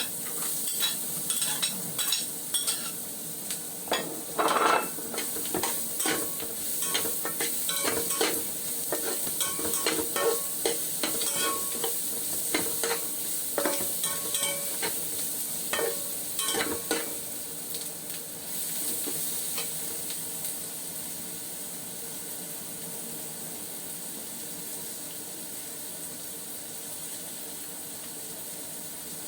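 Garlic sizzling in hot oil in a pan while a spatula stirs it, clinking and scraping against the pan. A little past halfway the stirring stops and the sizzle goes on alone, steady.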